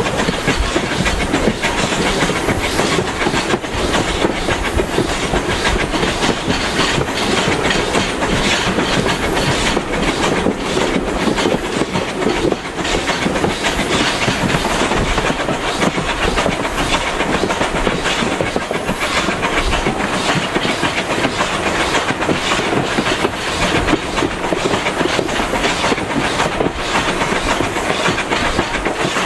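Passenger carriage running along a steam railway line: a steady rumble of wheels on the track with the clickety-clack of rail joints and short knocks throughout.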